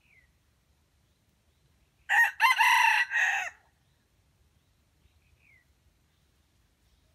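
A red junglefowl (wild chicken) rooster crowing once, a loud crow of about a second and a half beginning about two seconds in. A faint short chirp is heard near the start and again later.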